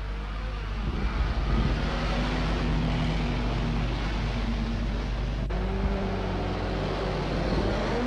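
Engines of 1930s-style motor vehicles, a car and a van ambulance of a rescue convoy, running as they pull away. The engine note gets louder about a second in and changes about five and a half seconds in, over a steady hiss.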